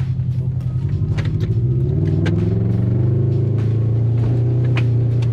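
Subaru Forester's flat-four engine running as the car drives, heard from inside the cabin, its note shifting in pitch about two seconds in. Scattered short clicks and knocks sound over it.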